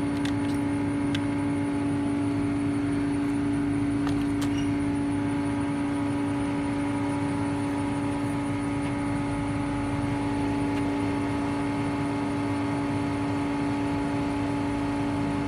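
A steady machine drone held at one constant pitch, with a few faint ticks in the first few seconds.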